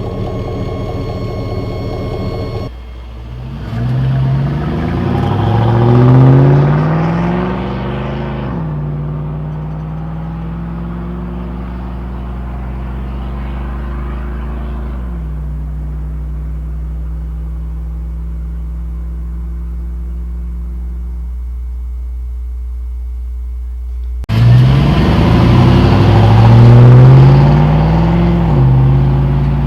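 Chevrolet 5.3L LM7 V8 exhausting through a Cherry Bomb muffler, accelerating with its pitch climbing in several sweeps through the upshifts. It then cruises steadily, drops in pitch about halfway, and eases off. Near the end it accelerates hard again with the same climbing sweeps, a deep exhaust drone heard inside the truck's cab.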